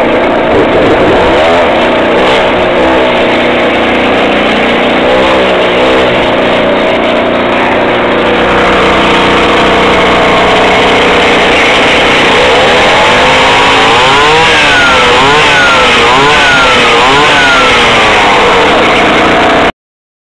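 Two-stroke chainsaw engine on a homemade motorized bicycle running loudly. It is revved up and down twice in the first few seconds, then through a quick series of rises and falls in the second half, and it cuts off abruptly just before the end.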